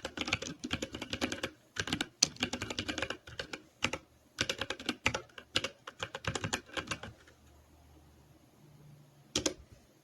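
Typing on a computer keyboard: quick runs of keystrokes for about seven seconds, then a pause and a single key press near the end.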